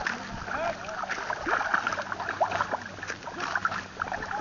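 Small waves lapping and gurgling against the shore, with many quick little plinks and a steady watery hiss.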